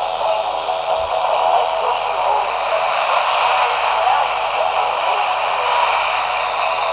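A Zastone ZT-2R+ handheld transceiver receiving an AM broadcast through its small speaker: steady, loud static hiss with faint program audio underneath.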